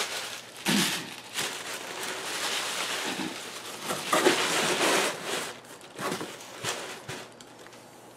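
Tissue paper and packing material rustling and crinkling as they are pulled out of a cardboard box, in several uneven bursts that die down near the end.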